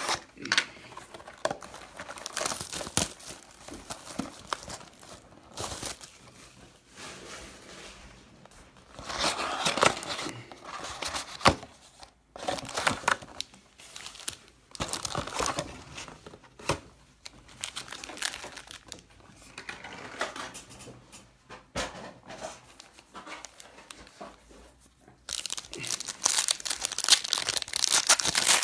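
Packaging of 2018 Panini Playoff football card packs crinkling and tearing as it is opened by hand. The crackles come unevenly and are busiest near the end.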